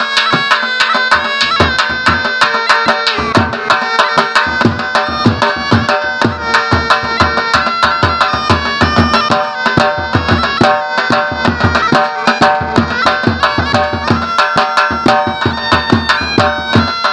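Shehnai playing a melody in traditional folk style over a fast, steady drum rhythm.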